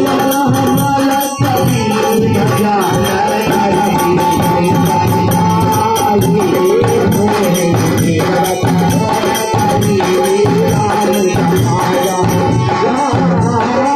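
Harmonium and dholak playing together: the harmonium holds sustained reedy chords while the dholak beats out a rhythm, with a fast, even rattling percussion beat on top.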